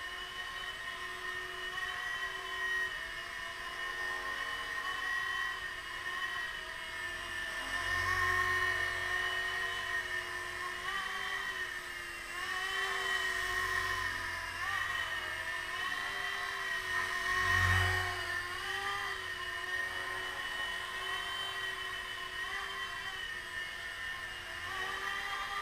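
Small electric RC helicopter (Blade) hovering: a steady high motor-and-rotor whine whose pitch wavers slightly up and down as the throttle is worked, with a few brief low rumbles.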